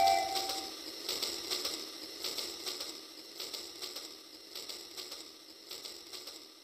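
Battery-powered Rail King toy train running along its toy track, its wheels clicking at a steady rhythm of about three a second and fading as it moves away. A held electronic tone ends under a second in.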